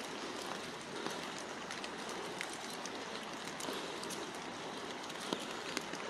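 Steady rain falling on a forest floor covered in fallen leaves, an even patter with scattered sharp drop ticks.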